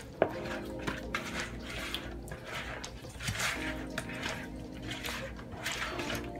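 Hands squishing and turning wet, mustard-and-hot-sauce-coated rabbit pieces in a plastic bowl, with wet squelches and small clicks, over background music.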